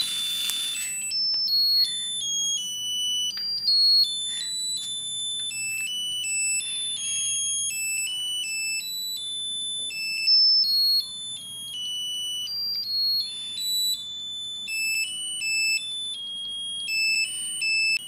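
Musical lotus birthday candle playing its tinny electronic melody, one high beeping note after another. A fizzing hiss from its central sparkler dies away about a second in.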